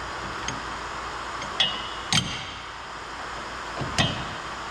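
Wrench and socket on a steel bolt clinking three times, sharp metallic clinks with a short ring, over a steady background hiss.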